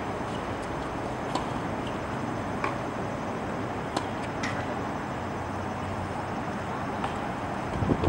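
Tennis racket strikes on a ball during a practice rally, several sharp pops a second or more apart, over a steady outdoor background rumble.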